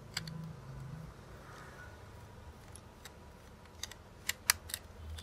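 Small screwdriver turning a screw in a hollow plastic toy fish: scattered light clicks and scrapes of metal on plastic, with a quick run of sharper clicks near the end.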